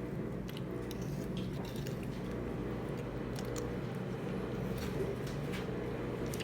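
Chewing and eating sounds, with scattered small clicks, over a steady low background hum.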